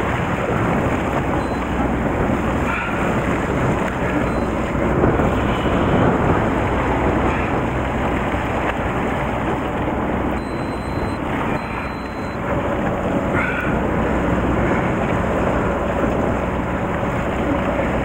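Steady wind on the microphone and sea wash alongside a fishing boat, with the boat's engine running underneath.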